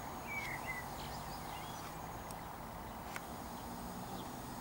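Quiet outdoor ambience: a steady background hiss with a few faint bird chirps in the first second and a few light clicks.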